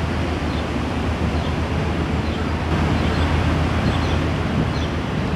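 Steady outdoor background noise: a low, even rumble with a hiss over it, and a few faint, short high chirps.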